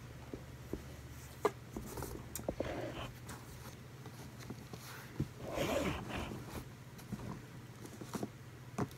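Cardboard shipping box being opened and handled: scattered taps, scrapes and rustles of cardboard, with a longer rustle about halfway through as the inner box is worked out, over a low steady hum.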